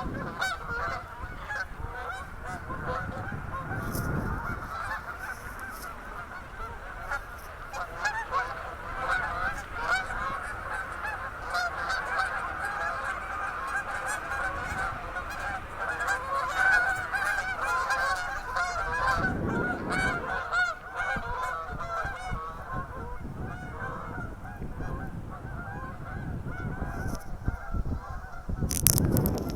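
A large flock of birds calling continuously, many calls overlapping into a dense chatter. A few low rumbles on the microphone break in, the loudest with a sharp knock near the end.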